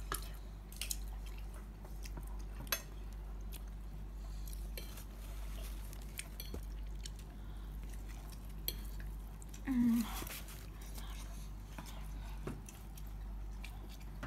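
Someone eating pizza: chewing, with scattered light clicks of a metal fork against the pizza and the cardboard box. A brief voiced sound comes about ten seconds in.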